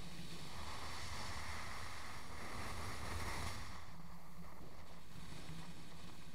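Wind rushing over the microphone of a vehicle moving along a paved road, over a steady low rumble. The rush grows louder and then falls away about three and a half seconds in.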